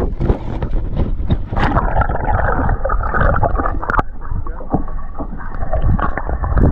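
Water gurgling and sloshing at the side of a fishing boat as a walleye is released, with wind rumbling on the microphone. About two seconds in the sound becomes muffled, losing its high end.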